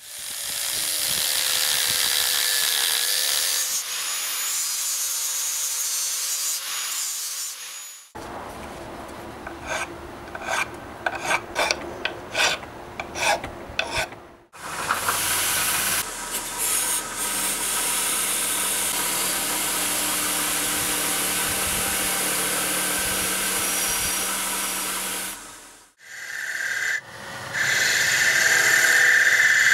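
Workshop tool sounds in several cuts. Stretches of steady machine noise run between a passage where a steel part held in a vise is hand-filed, a rasping stroke about twice a second. Near the end a wood lathe spins a wooden handle as a turning chisel cuts it with a steady scraping.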